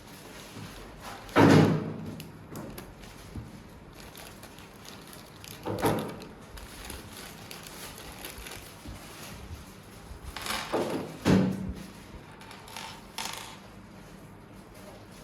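Handling knocks and clatters from DVR rack parts being moved and set down: a few separate knocks, the loudest about a second and a half in, and a pair close together about ten to eleven seconds in.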